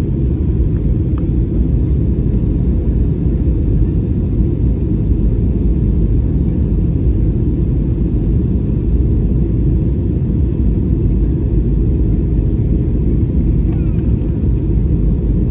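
Jet airliner cabin noise in flight: a steady, loud low rumble of engines and airflow heard inside the passenger cabin.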